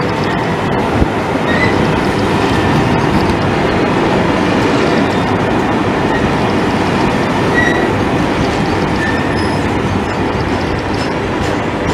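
A train running past: a steady rumble of wheels on rail, with a few brief faint wheel squeals.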